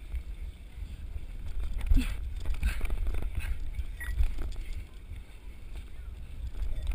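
Wind and movement rumble on a head-mounted camera's microphone as hands grab and swing along metal monkey bars, with a few sharp knocks, the loudest about two seconds in.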